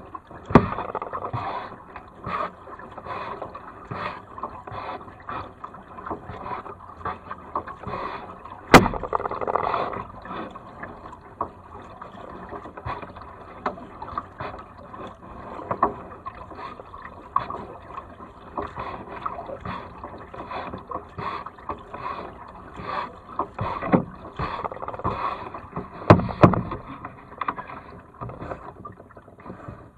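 Kayak paddling on calm water: the double-bladed paddle dips and splashes in a steady rhythm, about one stroke a second, with water dripping off the blades. A sharp knock about nine seconds in and a few louder knocks near the end.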